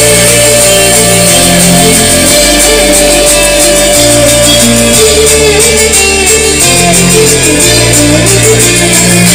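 Electronic dance music with a heavy bass line that changes note about every second, played loud through a pair of DJ speaker cabinets in a sound test of an SLV BL7 amplifier.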